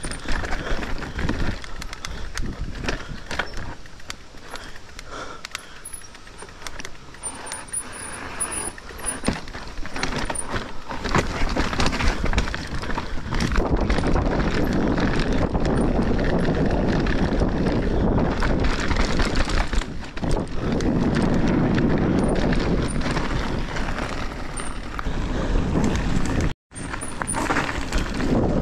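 Mountain bike riding downhill on a trail: tyres rolling over dirt and rock, with the bike rattling and clicking over bumps. The noise grows heavier and steadier from about halfway, with wind rumbling on the microphone as speed builds, and cuts out for a moment near the end.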